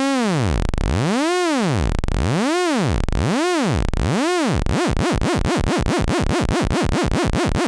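Eowave Orage analog oscillator's sawtooth output, its pitch swept up and down by an LFO: slow swoops about once a second, then a little past halfway the sweeps speed up to a fast warble of about five a second as the LFO rate is raised.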